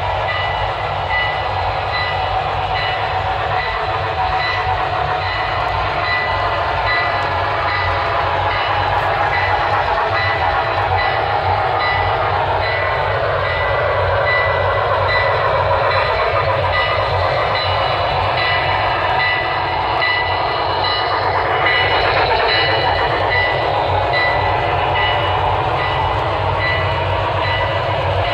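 Sound-equipped HO scale model locomotives running together on a layout: a steady mix of their speaker-made engine and steam sounds and the wheels rolling on the track.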